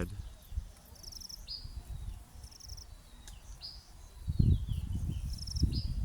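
Insects chirping in short, quick-pulsed high bursts, mixed with brief high chirps sweeping downward, typical of a rural outdoor soundscape. About four seconds in, an uneven low rumble rises and becomes the loudest sound.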